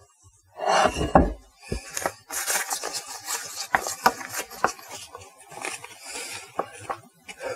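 Rustling of a pastry bag with small clicks, scrapes and soft knocks as a spatula and hand scoop stiff cookie dough out of a stainless steel mixer bowl and push it into the bag.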